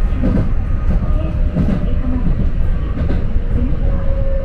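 Electric commuter train running along the track, heard from inside the lead car behind the driver's cab: a steady low rumble with occasional clicks from the wheels on the rails.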